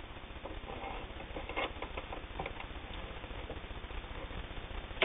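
Fabric rustling and being shifted as it is handled and repositioned under a sewing machine's presser foot, with scattered light clicks and one sharp click near the end, over a low steady hum.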